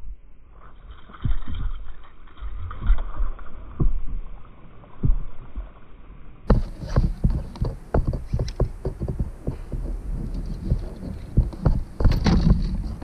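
Irregular low thumps and knocks from handling gear on a fishing kayak, becoming busier and sharper, with a clatter of clicks, from about halfway through as a fish is hooked and reeled in.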